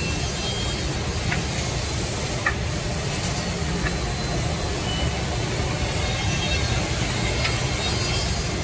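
Steady running noise of woodworking-factory machinery with a hiss through it, and a few short clicks about one, two and a half, and four seconds in.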